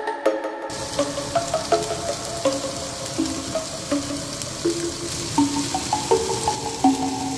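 Eel fillets sizzling in a hot pan with no oil, starting about a second in. Background music with a clear melody plays over it.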